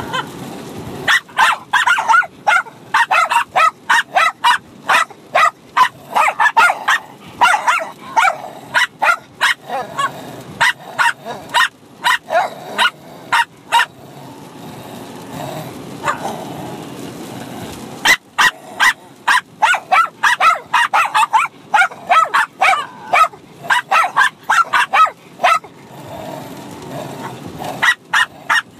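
A Bichon Frise puppy and an adult Bichon Frise barking at each other while play-fighting, in fast runs of short, sharp barks, with a quieter lull about halfway through.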